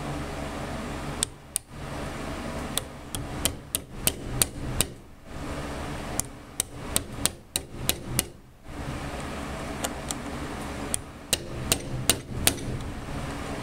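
Rubber mallet tapping a small 10 mm socket to drive a C-clip onto a lawn-mower starter's drive shaft: sharp light taps in several bursts with short pauses between. The clip is not yet fully seated. A steady low hum runs underneath.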